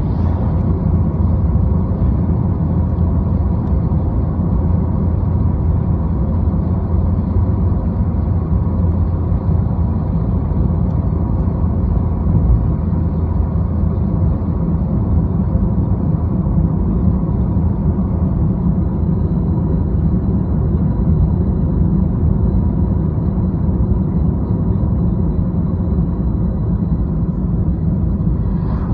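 Steady low road rumble of a car driving at highway speed, tyre and engine noise heard from inside the cabin.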